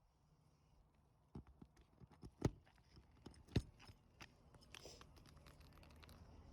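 Hand tools knocking and tapping on asphalt roof shingles during a shingle repair: scattered light taps, with two loud sharp knocks about a second apart midway through.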